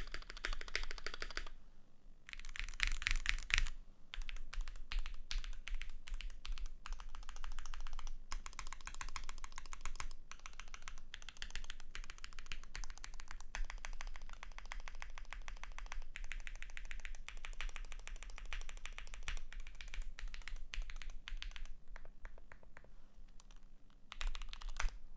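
Fast typing on a Keychron Q1 mechanical keyboard with a steel plate, lubed Gateron X switches and GMK keycaps: a dense stream of key strokes, with a brief pause about two seconds in and sparser strokes near the end.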